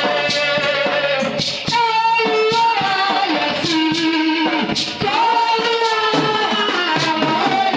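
Gospel praise-and-worship song, a woman's voice singing held, gliding notes over instrumental backing with percussive strikes.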